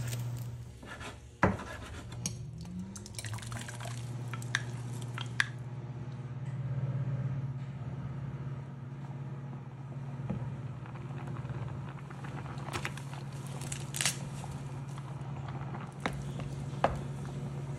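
Cooking at the stove: a spoon knocking and scraping against a pot of simmering liquid, with sharp clicks now and then, the loudest about a second and a half in, over a steady low hum.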